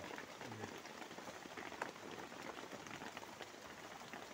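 Steady rain falling on a tarpaulin shelter overhead: an even hiss with many small drop ticks.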